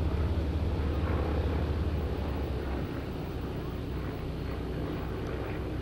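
Propeller warbird's radial engine droning at a distance, easing off a little about three seconds in.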